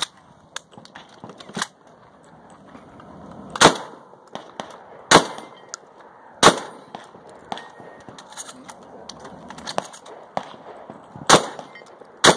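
Shotgun fired five times: three shots about a second and a half apart, a pause of about five seconds, then two more about a second apart near the end. Fainter clicks and pops fall between the shots.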